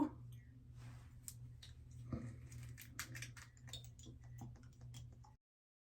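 Faint, scattered small clicks and light rustles, as a small plastic cosmetic bottle is handled, over a low steady hum. The sound cuts off to silence near the end.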